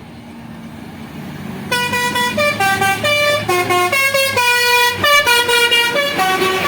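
A tour bus's musical 'telolet' air horn, a Basuri horn, playing a quick tune of short notes that jump up and down in pitch, starting about a second and a half in. Under it the bus's engine runs with a low rumble that grows louder at first.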